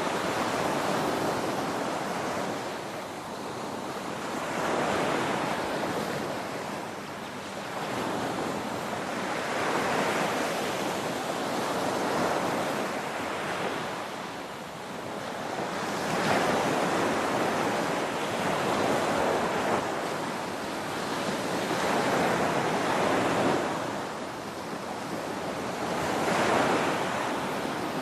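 Ocean surf: waves breaking and washing in a continuous rushing noise that swells and eases every few seconds.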